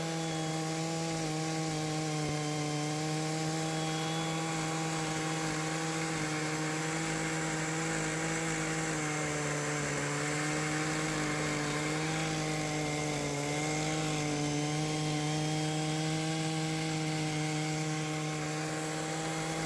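Stihl MS880 chainsaw, a large single-cylinder two-stroke with a 64-inch bar and skip chain, running flat out under load as it rips a wide oak slab in a chainsaw mill. Its pitch holds steady, dipping slightly a couple of times midway as the cut loads the engine.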